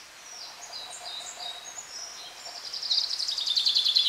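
Woodland birdsong: scattered short, high chirps, then from about two seconds in a rapid trill of quickly repeated notes that grows louder toward the end.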